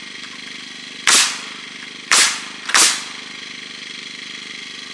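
Three sharp bangs, the second and third close together, over a steady engine hum.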